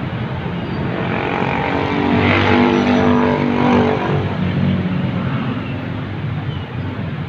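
Street traffic noise, with a motor vehicle's engine passing by, loudest about two to four seconds in.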